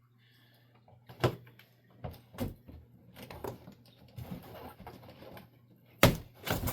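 Packing box and its wrapping being handled and rummaged through: rustling with several sharp knocks, the loudest near the end.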